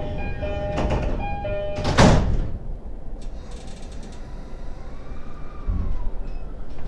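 E231-series commuter train's door chime repeating its two notes, then the doors slide shut about two seconds in with a loud bang and a hiss of air, and the train stands rumbling quietly, ready to depart.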